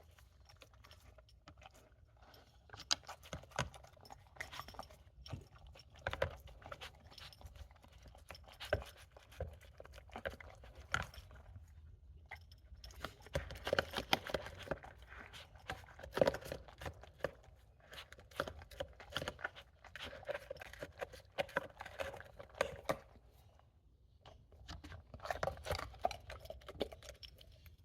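A dog chewing and crunching its food, many quick crunches in runs with short pauses between.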